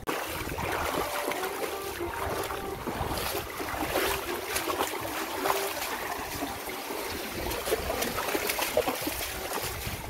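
Small waves washing and lapping onto a sandy beach, with a faint steady hum in the background and a few light scuffs.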